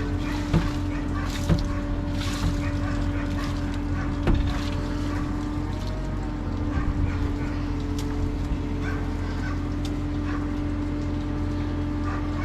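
A steady machine hum with a held, even tone, broken by a few sharp knocks in the first few seconds.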